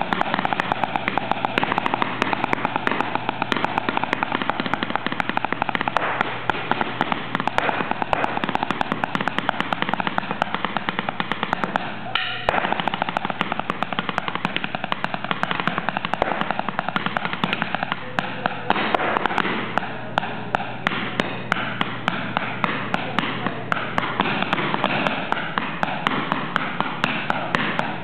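A pair of wooden drumsticks played fast on the floor and edge of a theatre stage: a dense stream of rapid stick strokes, with a brief break about twelve seconds in.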